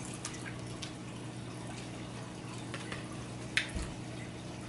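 Quiet eating sounds over a steady low electrical hum: faint clicks from forks against plastic bowls and mouths working on noodles, with a sharper click and a low thump about three and a half seconds in.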